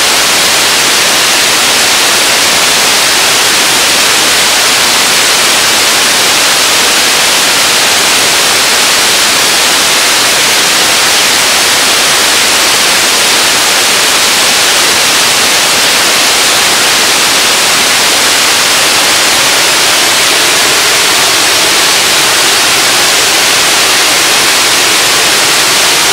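Whatcom Falls, a broad waterfall, pouring steadily: a loud, even rush of falling water, hissy and bright with little low rumble.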